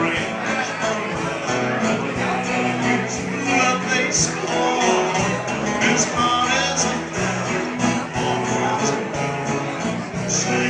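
Live country band playing a waltz.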